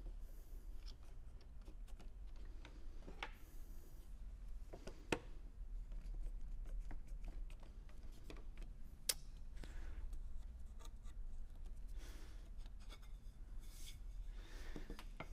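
Wooden seat slats and bar clamps being handled and fitted into a wooden chair frame on a workbench: scattered soft clicks and knocks of wood and clamp parts, with a few sharper taps.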